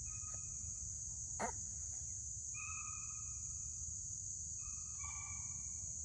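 Steady high-pitched buzz of an evening insect chorus in the woods. Three held whistle-like calls of about half a second to a second each sound over it, and there is a single click about a second and a half in.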